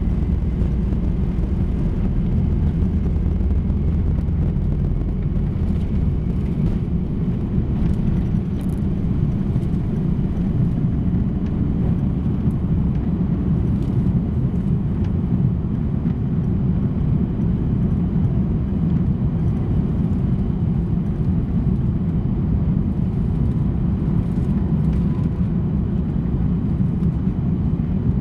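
Airbus A340-600 at takeoff thrust from its four Rolls-Royce Trent 500 engines, heard inside the cabin as a steady low rumble while the takeoff roll ends, the aircraft lifts off and climbs out.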